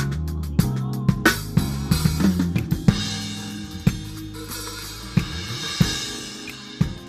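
Band music led by a drum kit: kick and snare hits, with a cymbal wash through the middle, over low held bass notes in the first few seconds.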